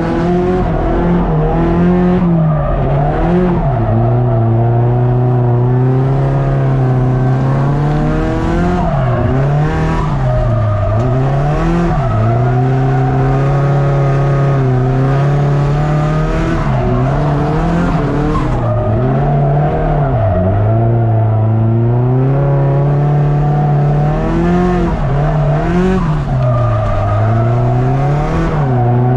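Nissan S13 drift car's engine held high in the revs with repeated dips and swings back up every couple of seconds as the car drifts, with tyres squealing under the slide.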